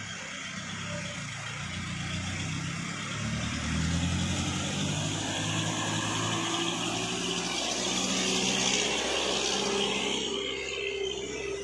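Diesel engine of a loaded Toyota Dyna 130 HT truck pulling slowly past close by, getting louder about four seconds in, with hiss from the passing truck near the end.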